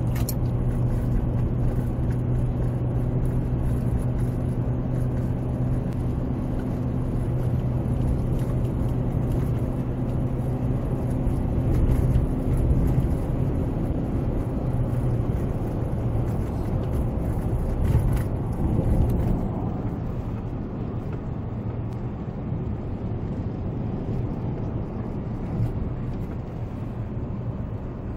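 Car driving along a road, heard from inside the cabin: steady engine hum and road noise. The sound turns a little quieter and duller about twenty seconds in.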